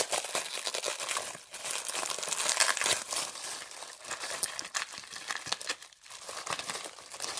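Packaging being crinkled and torn open by hand, a continuous run of crackles with brief lulls about a second and a half in and again near six seconds.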